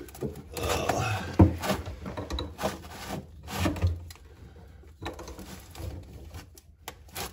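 Scattered knocks, scrapes and rubbing as an adjustable wrench is handled and fitted onto the supply-line nut at a sink shutoff valve in a tight space under a wooden vanity.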